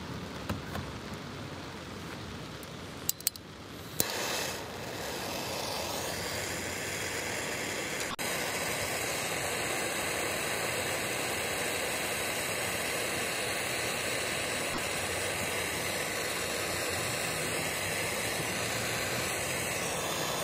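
Handheld gas torch lit after a few sharp clicks about three to four seconds in, then burning with a steady hiss as it heats a copper refrigerant line joint for soldering.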